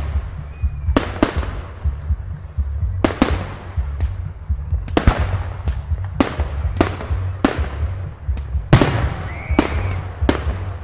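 Fireworks exploding overhead: more than a dozen sharp bangs at irregular intervals, each trailing off in a fading crackle, with a couple of faint brief whistles. A steady low rumble runs underneath.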